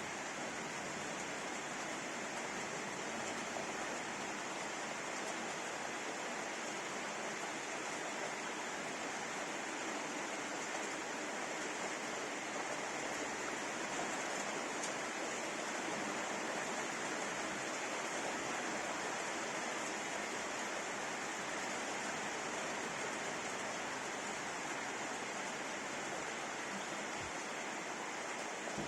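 Rain falling steadily as an even hiss, with no change in strength.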